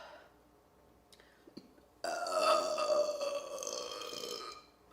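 One long, drawn-out burp lasting about two and a half seconds, starting suddenly about two seconds in, its pitch sinking slowly as it goes.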